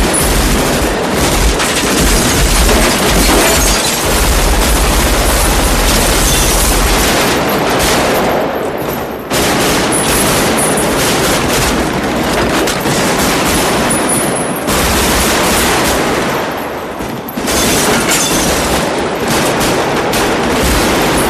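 Sustained automatic rifle fire, with rapid shots following one another almost without a break. There are two brief lulls, about eight and sixteen seconds in.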